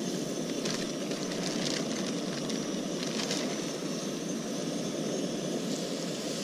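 Steady roar of a propane camp-stove burner heating a skillet of oil, with sizzling and a few crackles as breaded catfish fillets are laid into the hot oil.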